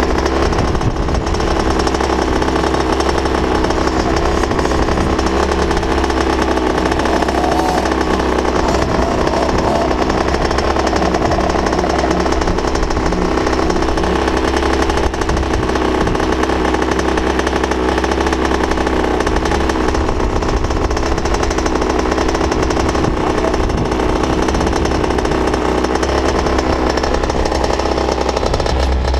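Motocross bike's single-cylinder engine idling steadily, close to the microphone, with no change in revs.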